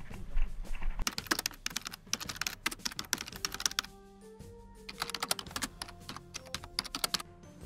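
Airsoft gun firing in two long runs of rapid sharp clicks, from about a second in to about four seconds and again from about five seconds to near the end. Music with held notes plays underneath.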